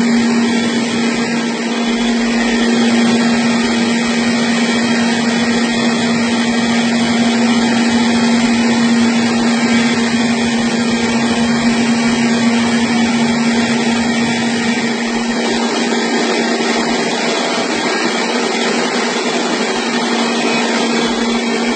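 Small rice milling machine running steadily: a constant low motor hum under an even rushing noise.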